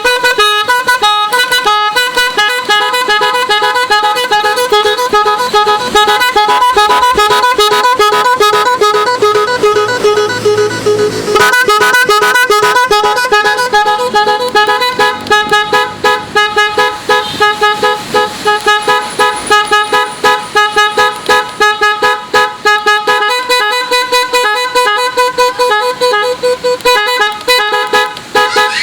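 A telolet horn, a set of multi-tone electric horns fitted to a motorcycle, playing a fast tune of short horn notes. The notes become shorter and choppier in the second half.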